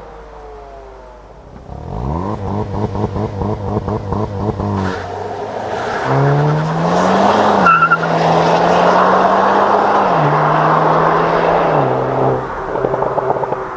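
Hyundai Kona N's turbocharged 2.0-litre four-cylinder engine and exhaust. The revs fall away at first, then are held steady with a rapid stutter for a few seconds. The car then pulls away hard, the engine note rising and stepping down at each gear change of its 8-speed dual-clutch gearbox, with rising tyre and road noise. A short high chirp comes at the first shift.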